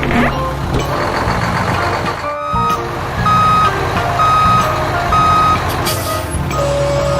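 Truck's reversing alarm beeping about once a second, starting about three seconds in, over a steady low engine rumble.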